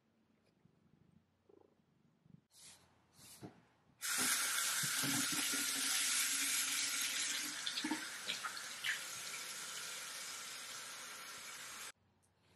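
A water tap running into a sink: a steady hiss of flowing water that starts suddenly about four seconds in, eases slightly partway through, and cuts off about eight seconds later.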